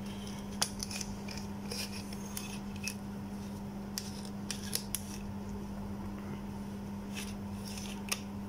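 Small metal clicks and scrapes, a dozen or so scattered short ticks, as the loose threaded tail-end switch section of a handheld rechargeable torch is turned and worked by hand. A steady low hum runs underneath.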